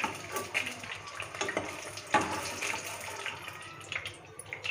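Hot oil sizzling and crackling around boiled eggs shallow-frying in a nonstick pan, while a steel ladle scoops them out, with a sharper knock of the ladle about two seconds in.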